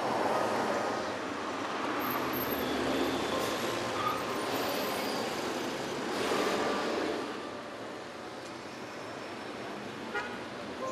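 Busy city street traffic: a city bus passes close, its engine and tyre noise swelling and fading, over the steady noise of other vehicles. The traffic grows quieter after about seven seconds.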